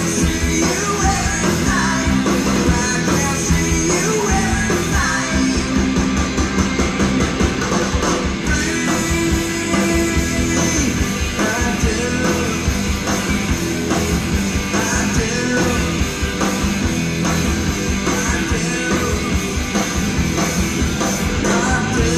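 Rock band playing loud and without a break on an audience recording: distorted electric guitar, bass, pounding drums and singing.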